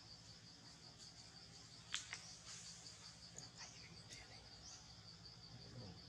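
Insects chirring steadily in a high, evenly pulsing trill, with a short, sharp, falling chirp about two seconds in and a few fainter chirps after it.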